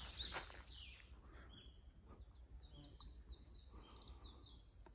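A few footsteps crunch on dry leaf litter at first. Then a small bird sings faintly in the second half: a quick run of short, high, repeated notes, about four a second.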